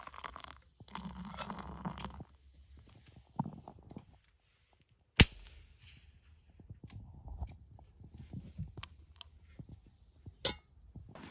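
Hot water poured into a steel travel mug for about two seconds, then about five seconds in a single sharp shot from a moderated .410 shotgun, with a short ringing tail. A second, fainter sharp crack comes near the end.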